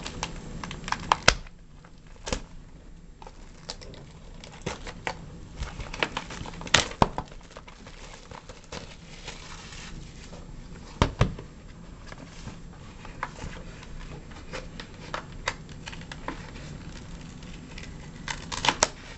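Hands tearing and crinkling the plastic wrapping off a sealed box of baseball cards, with irregular sharp clicks and snaps of handling the box.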